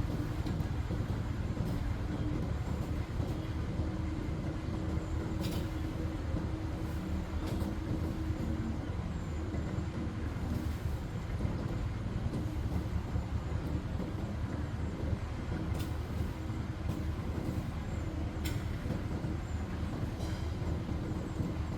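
Steady low mechanical rumble with a faint steady hum, and a few short clicks.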